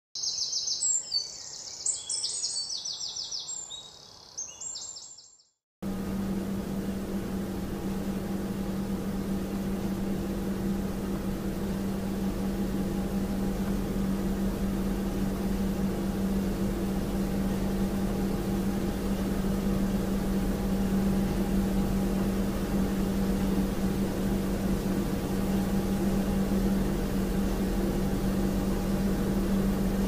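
High-pitched chirping like birdsong for about five seconds, which cuts off. After a brief gap, a steady machine hum with a low drone and faint higher tones takes over, like industrial or factory ambience.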